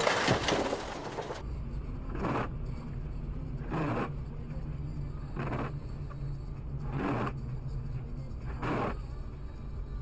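A second and a half of loud, rough rattling noise. Then the steady low hum of a car driving on a wet road, heard from inside the cabin, with a windscreen wiper swishing across the glass about every second and a half.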